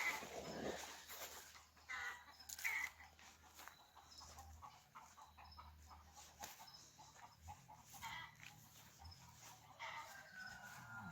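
Farmyard chickens clucking in scattered short calls, with a rooster's drawn-out crow near the end; faint.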